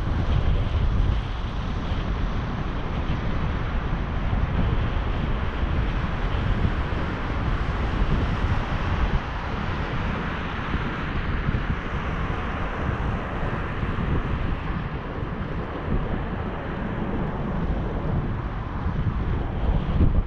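Wind buffeting the microphone of a camera moving along on a bicycle: a steady low rumble under a rushing hiss that swells a little around the middle.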